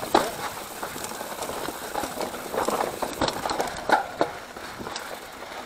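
Mountain bike riding over a rough dirt trail: a steady rush of tyre and trail noise, broken by irregular clicks and knocks as the bike rattles over bumps and roots.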